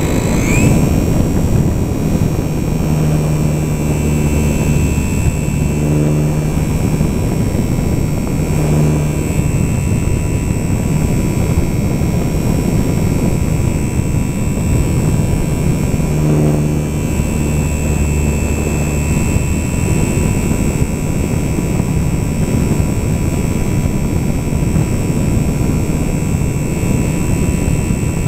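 Electric motor and propeller of a HobbyZone Super Cub radio-control plane running under power, heard from a camera mounted on the plane: a steady high whine over the rush of wind on the microphone. The whine rises in pitch right at the start as the throttle comes up, and a lower hum swells and fades a few times.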